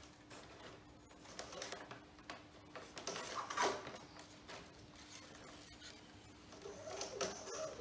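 Faint handling noises: light rustles and clicks as a flying-wire line is worked through the struts of a foam model biplane, with a sharper tick about halfway through. A steady low hum runs underneath.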